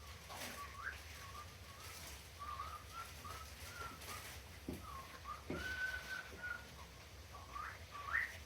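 Cockatiel whistling a run of short notes, with one held note about six seconds in and quick rising chirps near the end; a couple of faint knocks sound in between.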